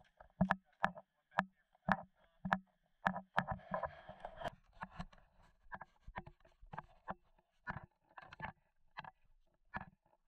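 Footsteps of someone walking along a dirt path, heard close up, about two steps a second, with a brief rustling scuff about four seconds in.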